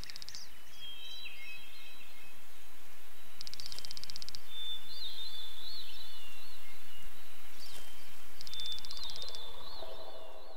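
Birds chirping and singing over a steady background hiss: warbling calls with a few short, rapid trills, slowly growing louder. A few lower tones come in near the end.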